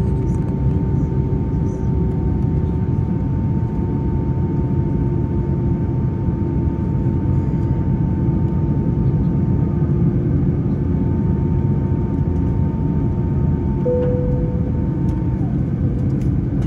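Steady cabin noise inside an Airbus A321ceo on the ground after landing: a loud low rumble with faint steady whines. A short higher tone comes in near the end, and one of the whines stops soon after.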